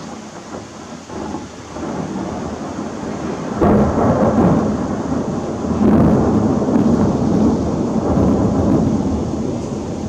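Thunder from a nearby thunderstorm over steady heavy rain. A low rumble builds, breaks suddenly into a loud clap about three and a half seconds in, and rolls on, loudest around six seconds in, then slowly fades.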